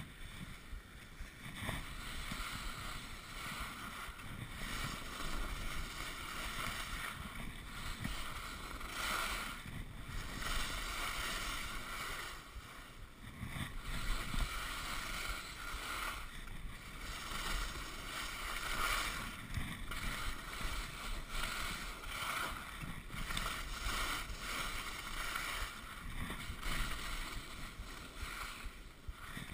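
Alpine skis sliding and scraping over packed snow during a downhill run, a steady hiss that swells and fades every few seconds with the turns.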